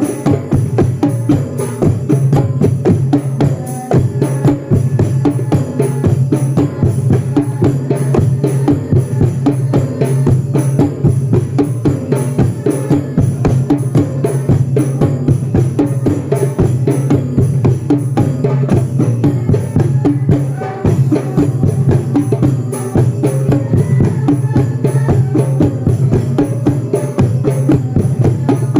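Music with fast, continuous drumming over a steady low tone.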